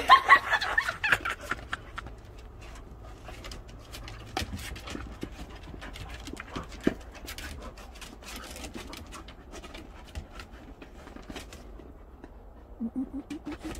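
Dogs' claws clicking and scrabbling on a wooden deck as two dogs play and tussle over a rubber ball, with panting. A loud, high pitched cry opens, and a short rising cry comes near the end.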